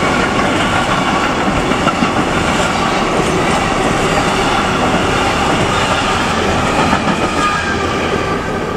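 Container freight train's wagons rolling past close by: a steady loud rumble and clatter of steel wheels on the rails. The last wagon goes by near the end and the noise begins to fade.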